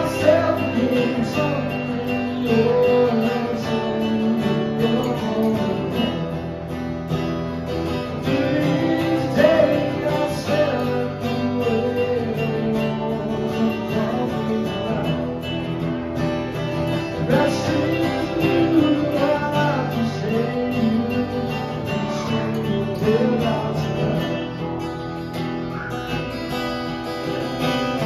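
Two acoustic guitars strummed together with a man singing: a live acoustic duo playing a slow country-style song.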